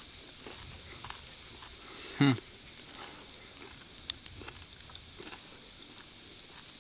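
Faint steady sizzling of hot frying oil in a pan, with scattered small pops and crackles. A brief sound from a man's voice about two seconds in.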